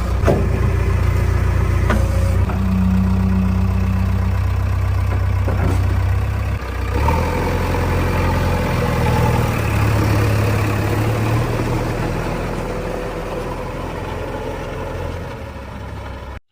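Diesel engine of heavy machinery running steadily, its pitch shifting about seven seconds in, with a few sharp knocks in the first six seconds. The sound cuts off suddenly at the end.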